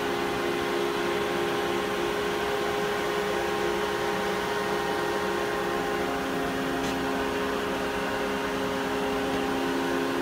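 Steady hum and whir of a powered-up Daewoo Puma 1500SY CNC turn-mill centre, heard at its open electrical cabinet. Several fixed tones sit over an even noise, and one of them grows a little stronger about six seconds in.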